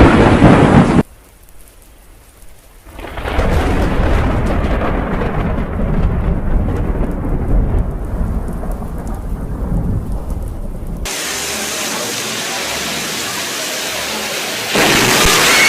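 Thunderstorm: a loud thunder crash cuts off about a second in. From about three seconds, thunder rumbles over heavy rain. About eleven seconds in it switches suddenly to a steady hiss of pouring rain.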